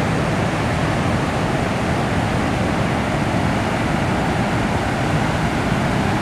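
Water discharging through the open gates of a dam spillway and pouring over its crest: a steady, unbroken rush of churning water.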